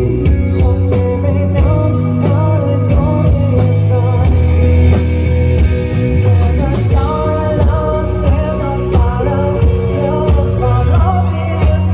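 Live rock band playing loudly: drum kit, electric guitar and bass, with a sliding bass line about halfway through.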